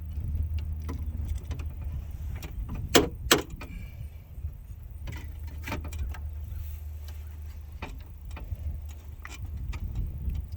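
Hands fumbling inside a truck door with the electrical connector of the power window motor, trying to press in its release clip: scattered small plastic and metal clicks and knocks, with two sharp knocks close together about three seconds in.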